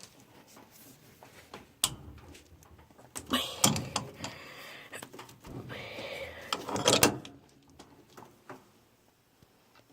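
Bench vise being cranked down on a piece of copper: metal clunks and scraping from the vise, with sharp knocks, the loudest about seven seconds in.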